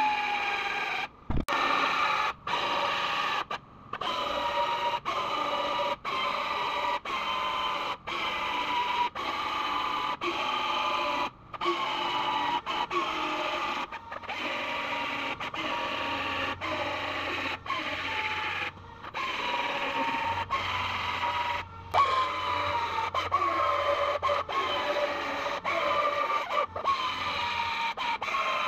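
Belt sander grinding into the sheet metal of a car's rear body panel to cut through its spot welds, its whine sagging in pitch each time it is pressed into the metal. It comes in short stretches of about a second, each cut off abruptly.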